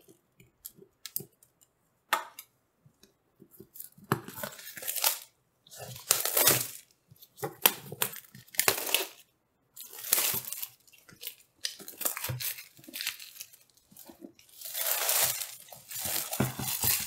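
A power supply's cardboard packaging being cut and torn open: after a few light clicks, a run of short tearing and scraping bursts as the seal tape is cut and the box is opened, the longest burst near the end.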